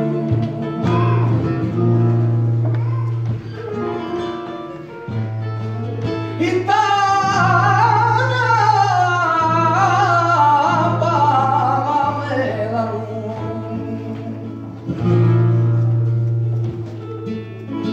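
Male flamenco singer singing por soleá over flamenco guitar, drawing out one long ornamented phrase through the middle of the passage.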